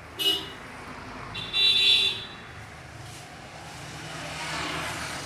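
A vehicle horn honks twice, a short toot and then a longer one of about a second, over steady traffic noise that swells near the end.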